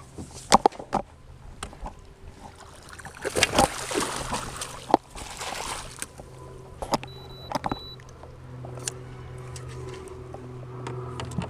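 Knocks and clicks against a plastic fishing kayak, with water splashing from about 3 to 6 seconds in. A short, high electronic beep sounds about two-thirds of the way through.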